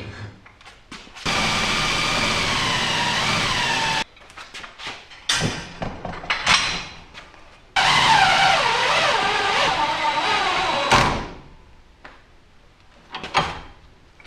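Cordless drill spinning the drive of a ceiling-mounted drill-powered storage hoist, running in two spells of about three seconds each with a wavering motor pitch. Knocks and clunks from the rack and hoist come between and after the runs.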